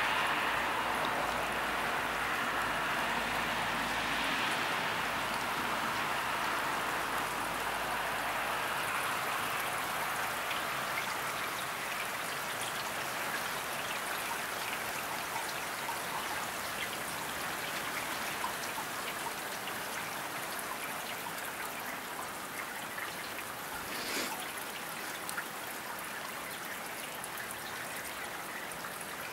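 Steady rain falling, with many small drops pattering close by; it eases a little as it goes on.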